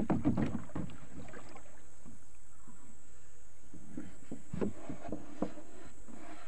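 Knocks and water noise from a wooden dugout canoe. A sharp knock on the hull right at the start is followed by a short run of clattering, then a few scattered bumps about four to five and a half seconds in, as a plastic jerrycan float is drawn against the boat's side.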